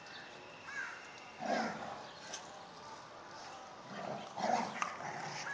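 Young animal giving short whining cries, two bouts about a second and a half in and again around four seconds in.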